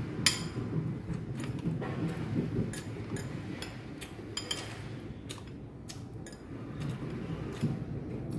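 Metal spoon and fork clinking and scraping against a glazed ceramic bowl while scooping rice, in irregular taps about two a second, the loudest about a quarter second in.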